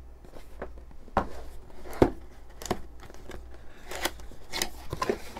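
Cardboard box being handled and opened: irregular taps, knocks and scrapes of cardboard, the sharpest knock about two seconds in.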